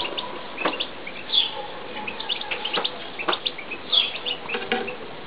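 European goldfinches chirping, a run of short high chirps and clicks with two louder calls, about a second and a half in and about four seconds in.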